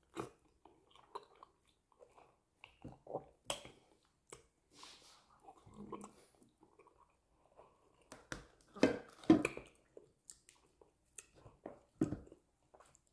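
Close-up chewing and mouth sounds of a person eating soft amala with banga soup by hand: irregular short smacks and clicks, loudest about nine seconds in.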